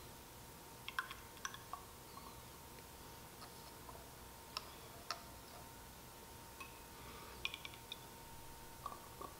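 Faint scattered light clicks and taps, some in quick little clusters, as a plastic pipette is handled in and around a glass graduated cylinder. Under them, quiet room tone with a faint steady tone.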